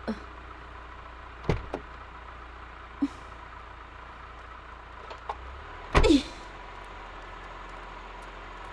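Taxi door opening with a sharp latch click, followed by a couple of smaller clicks and, about six seconds in, a loud short thump with a brief vocal grunt as someone climbs out. A steady low hum sits underneath.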